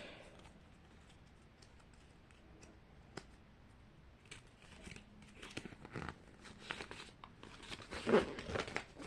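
Faint crinkling and rustling of packaging being handled, starting about four seconds in as scattered small clicks and crackles that get busier toward the end.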